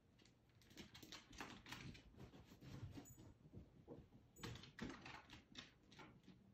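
Faint, irregular clicking of a pet's claws on a hardwood floor as it walks about.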